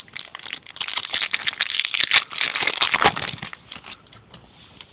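Crinkling and crackling of a trading-card pack wrapper being handled and opened, a dense run of crackles that dies away after about three and a half seconds.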